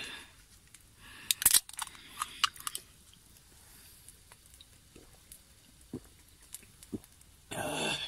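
Aluminium can of lemon chu-hi being handled and opened: a sharp click with a brief fizzing hiss about a second and a half in, then a few small clicks and knocks, and a short breathy burst near the end.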